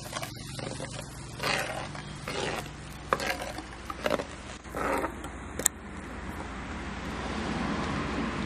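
Metal skimmer ladle stirring a curry in a cooking pot: about five short scraping strokes over the first five seconds, with a couple of sharp clinks of metal on the pot, then a steadier hiss. A low steady hum runs underneath.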